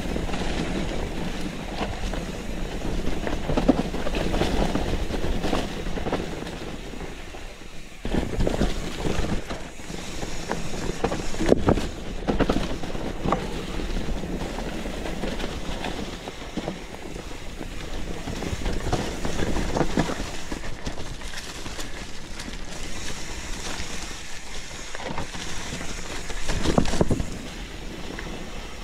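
Mountain bike ridden along a dirt forest singletrack: a steady rumble of tyres on dirt and roots with irregular knocks and rattles from the bike over bumps, picked up by a GoPro mounted on the rider or bike.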